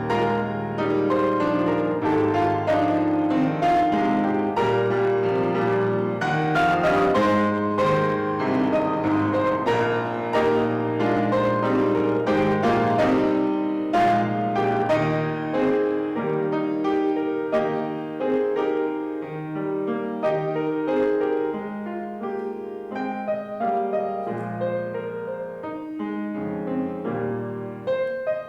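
Solo piano playing, a continuous flow of chords and melody notes that grows a little softer toward the end.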